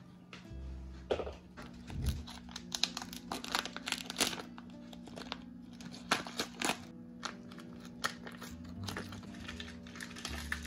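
Plastic film crinkling and crackling with scissor snips as frozen kefir packets are handled and their polyethylene wrapping is cut open, in irregular quick bursts over soft background music.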